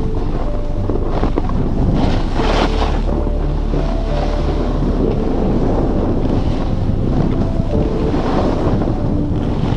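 Wind buffeting the microphone, a loud, steady rush with heavy low rumble, as from a camera moving fast down a ski slope.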